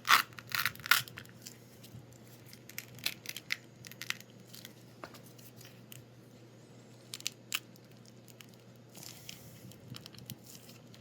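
Clusters of crackling, tearing and snapping as printed TPU support material is pulled and ripped off a flexible 3D-printed case by hand. The loudest burst comes in the first second, with shorter clusters through the middle and near the end.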